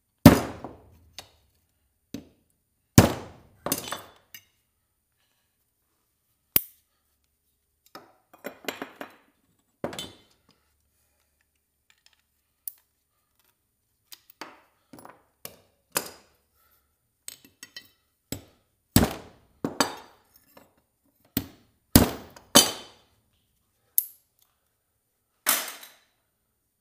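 Hammer blows on a brass scrap fitting to knock a sleeve off it: sharp metal-on-metal strikes, some ringing briefly, coming in irregular groups with pauses between.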